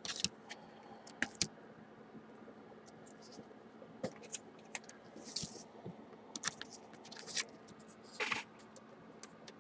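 Faint scattered clicks and scrapes of a trading card handled in a gloved hand, with a short rustle about five seconds in and a brief swish near the end.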